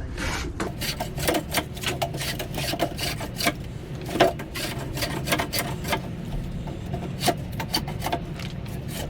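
Repeated, uneven scraping strokes of a hand tool shaving along the edge of a wooden fascia board to trim it straight.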